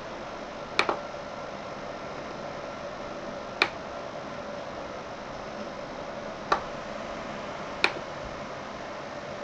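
A steady background hum with a faint steady tone in it, broken by four short sharp clicks at irregular intervals of a few seconds. The first click comes as a quick double.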